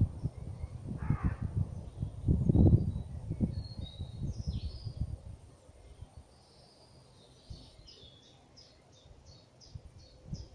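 Wild birds calling outdoors over low wind buffeting on the microphone: a single harsh call about a second in, a few high chirps, and near the end one bird singing a quick run of high repeated notes, about four or five a second. The wind rumble is the loudest thing in the first half and dies down before the song.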